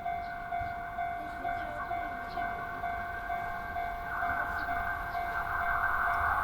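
Japanese level-crossing warning bell ringing, a steady pulsing tone a little over twice a second. About four seconds in, the rising noise of an approaching train joins it.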